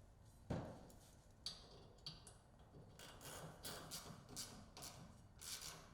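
Faint, scattered clicks and taps of roof-mounting hardware being handled while the rear roof-panel fasteners go in, a little denser in the second half.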